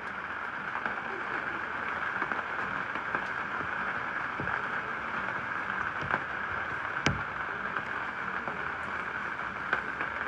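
Steady hiss of rain, with scattered light ticks and one sharp knock about seven seconds in.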